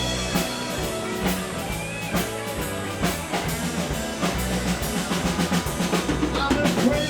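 A blues band playing an instrumental passage: drum kit keeping a steady beat with bass drum and cymbals, electric bass and guitar.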